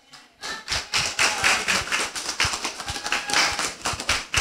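An audience applauding: many hands clapping at once, starting about half a second in and keeping up.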